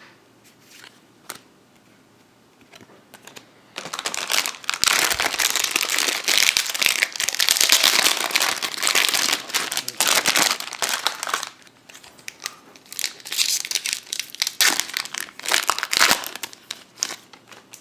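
Foil Pokémon booster pack wrapper crinkling as it is handled and opened, starting about four seconds in, pausing briefly, then crinkling again.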